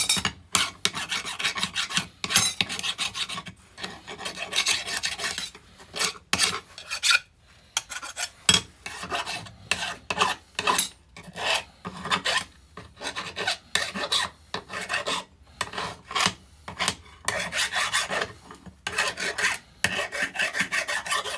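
Hand file rasping across steel in quick, uneven strokes, deburring the edges of freshly drilled holes, with a brief pause about seven seconds in.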